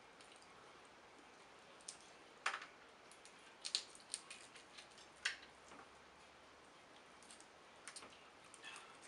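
Snow crab leg shells being cracked and picked apart by hand: scattered sharp snaps and clicks, a few in quick clusters, over a quiet background.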